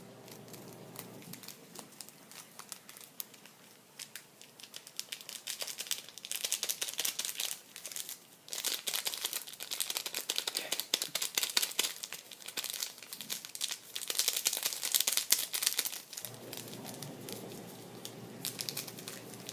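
Ramen seasoning packet crinkling and tearing as it is worked open. The sound comes in uneven bursts of crackling, starting a few seconds in and dying down near the end.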